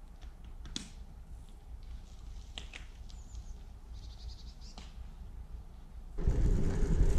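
Faint outdoor ambience: a low wind rumble on the microphone with a few high bird chirps and scattered small clicks. About six seconds in, it switches abruptly to the loud wind and road rumble of a camera riding on a moving bicycle.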